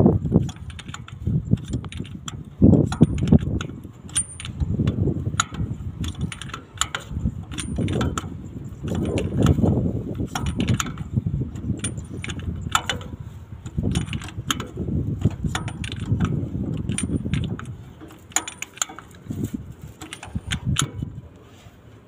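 Metal hand tools clinking and clicking against engine parts in many irregular sharp taps, over a low uneven rumble.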